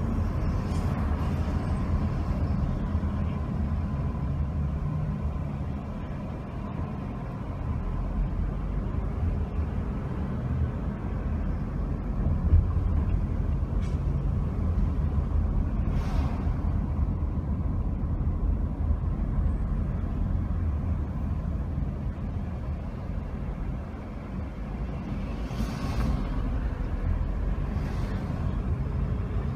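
Steady low rumble of a car driving slowly through town, engine and tyre noise heard from inside the cabin. A few short hisses come about halfway through and again near the end.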